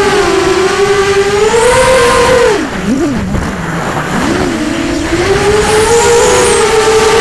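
Brushless motors and propellers of a ZMR250 FPV racing quadcopter whining, heard close from the onboard camera. About two and a half seconds in, the pitch drops sharply as the throttle comes off and wavers low for about two seconds, then climbs back to a steady whine.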